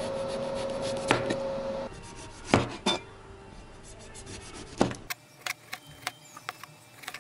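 Kitchen knife chopping eggplant and slicing tomatoes on a cutting board: a few sharp knocks of the blade hitting the board, then quicker, lighter taps and cuts near the end. A steady hum with a faint held tone runs underneath for the first couple of seconds.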